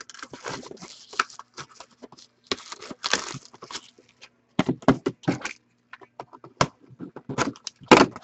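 Card-box packaging being opened and handled: irregular bursts of crinkling, tearing and tapping of wrapper and cardboard, over a faint steady hum.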